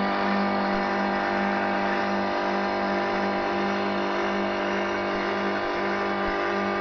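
Electric motor of a pond nanobubble aerator running with a steady, even hum.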